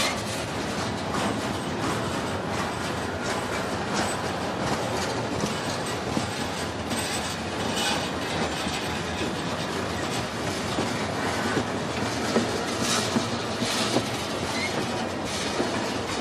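Freight train rolling slowly past, its wheels clicking over rail joints with a steady rumble and now and then a brief wheel squeal.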